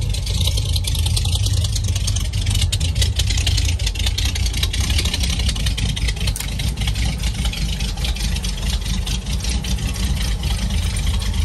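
Old Ford pickup engine idling steadily with a low rumble.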